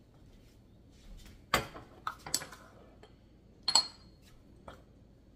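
A metal spoon clinking and knocking against a small ceramic bowl while salt is scooped: a handful of separate sharp clicks, the loudest about two-thirds of the way through with a short ring.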